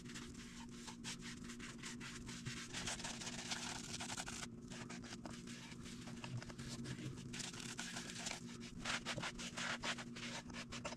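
A cloth rubbing and wiping over the wood of a turned cherry bowl, applying a coat of sanding sealer, in quick scratchy strokes that come in two stronger runs. A steady low hum runs underneath.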